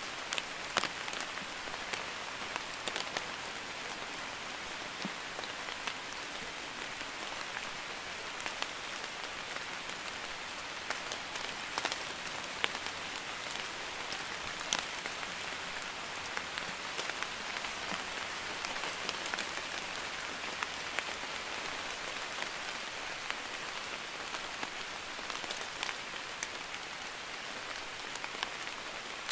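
Steady light rain, a drizzle: an even hiss of falling rain with scattered sharp taps of single drops landing close by.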